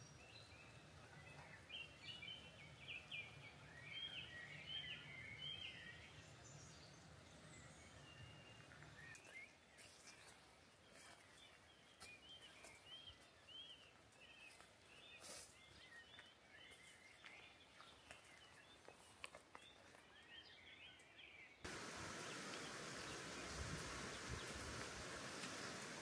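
Small birds calling softly: a flurry of short chirps at first, then a long run of repeated short, arched chirps. About twenty seconds in, the sound changes suddenly to a louder, steady rushing hiss.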